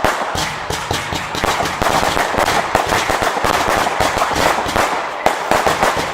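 Fireworks firing in a dense barrage: a continuous stream of rapid bangs and crackles with no break.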